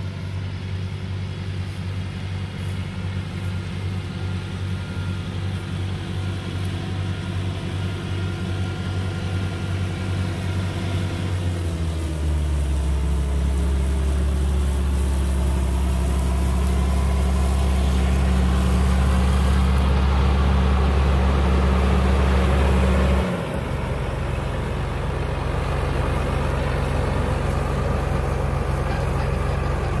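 Large farm machine's diesel engine running steadily. About twelve seconds in its drone deepens and grows louder, and about twenty-three seconds in it drops back abruptly.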